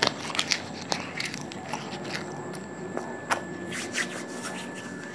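Chewing and biting a mouthful of raw tree leaves: irregular crisp crunching and crackling clicks, picked up close by a clip-on microphone.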